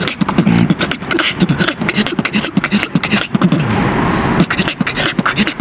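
Solo human beatboxing: fast vocal kick, snare and click sounds over a hummed bass line, with a longer hissing sound near the middle.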